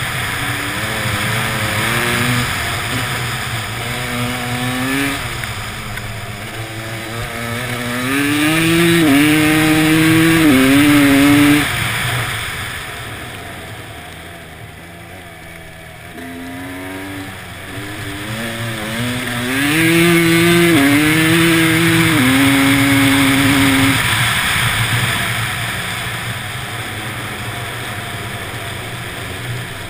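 Motorcycle engine accelerating on an ice track, the revs climbing and dropping back with each upshift. Just before halfway the throttle is shut and the engine goes quiet for a few seconds, then it pulls up through the gears again and settles into a steady run.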